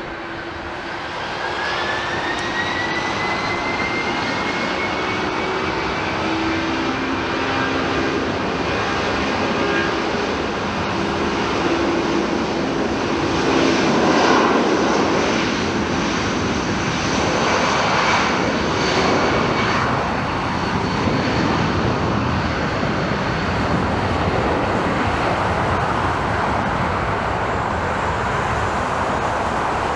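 Airliner's jet engines at takeoff power on the takeoff roll: a steady loud roar with a fan whine rising in pitch over the first few seconds, loudest about halfway through as the jet passes.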